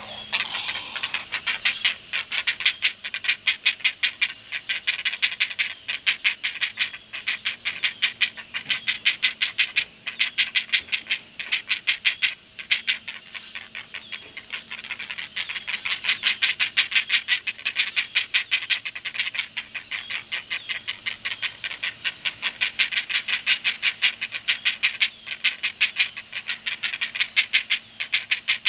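Great blue heron chicks giving their begging call, a fast chatter of short harsh notes repeated several times a second, as the adult feeds them at the nest. The chatter eases briefly twice and then picks up again.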